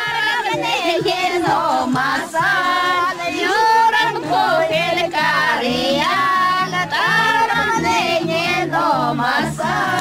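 Music: a high voice singing a wavering, gliding melody over a low, pulsing accompaniment.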